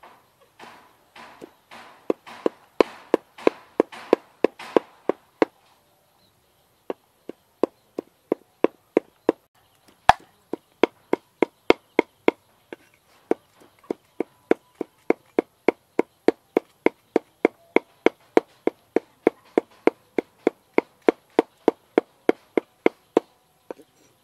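Meat cleaver chopping on a round wooden chopping block, mincing food. The first few seconds are softer, longer strokes; after a short pause come steady sharp chops about three a second.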